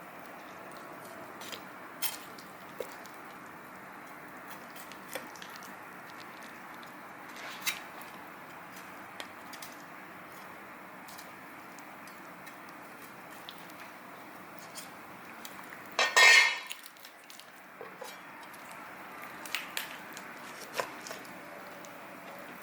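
Kitchen utensils and dishes knocking and clinking: scattered light clicks over a steady low hiss, with one loud clatter lasting about half a second, a little past two-thirds of the way in.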